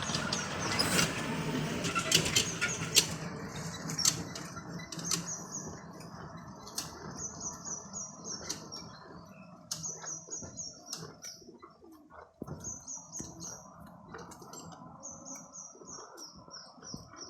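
Short runs of high, quick chirps from a small bird, four to six notes per run, repeating every few seconds. Under them are rustling and sharp crunching sounds, loudest in the first few seconds.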